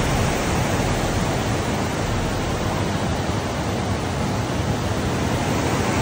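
Water pouring over a concrete weir in a wide sheet and churning into white foam, a steady, even rush.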